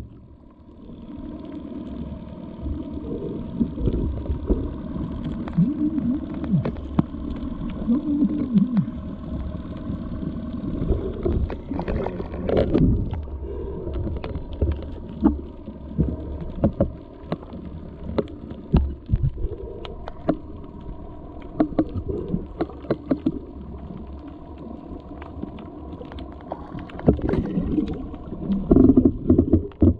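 Muffled underwater noise picked up by a submerged camera: a low rumble of moving water with many scattered clicks and pops.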